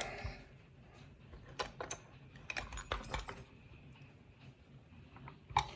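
A few light metallic clicks and clinks, in two short clusters and once more near the end, from a just-picked challenge lock and its picking tools being handled.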